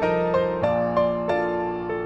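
Background piano music, a gentle melody with new notes about three times a second.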